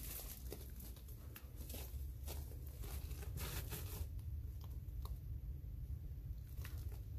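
Footsteps crunching and scraping on loose gravel and rock, with many short crunches over the first four seconds, then only a few faint clicks. A steady low rumble sits underneath.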